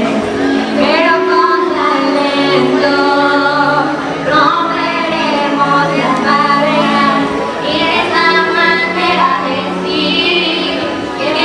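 Two girls singing a slow ballad live in held, sustained notes, over a steady instrumental accompaniment.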